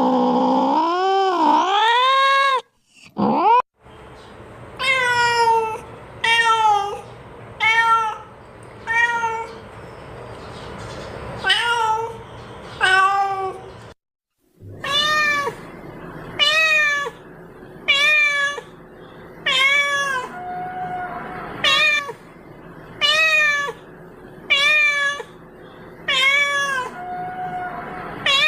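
A domestic cat meowing: a long wavering yowl at the start, then over a dozen short meows rising and falling in pitch, about one every second or so. Two brief cut-outs break the sequence.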